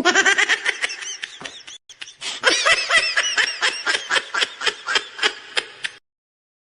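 High-pitched snickering laugh in rapid bursts, about four a second, with a brief break about two seconds in; it cuts off suddenly near the end.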